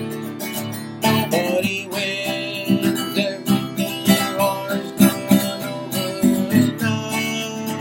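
Music: an acoustic guitar strummed in a slow song, the strumming getting stronger and more accented from about a second in.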